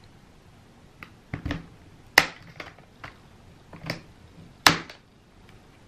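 Plastic clips of an Acer Aspire One Cloudbook 11's LCD bezel snapping loose as a metal pry tool works along its edge: a string of about seven sharp clicks, the loudest about two seconds in and again near the end.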